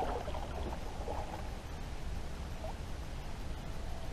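A kayak paddle dipping and dripping in calm lake water, water lapping at the plastic hull, over a steady low rumble.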